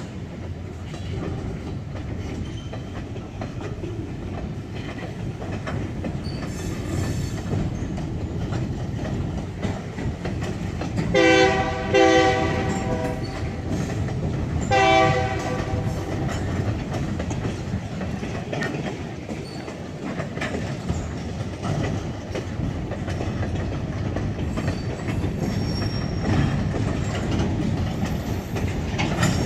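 Railroad gondola cars rolling slowly past, their wheels making a steady rumble and clacking over the rail joints. About eleven seconds in, the locomotive's air horn sounds two short blasts close together, then a third short blast a couple of seconds later.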